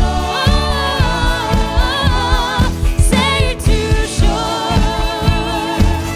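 Upbeat Christian pop song with a lead voice singing over a steady drum beat and bass.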